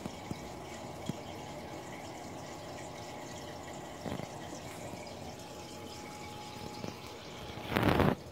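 Aquarium water trickling and dripping steadily, with a faint steady hum underneath. Near the end there is a brief, much louder rushing noise.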